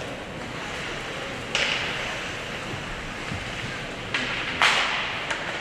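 Ice hockey play in an arena: a steady hum of background noise with two sharp scraping hisses, about one and a half seconds in and again near the end, like skates digging into the ice.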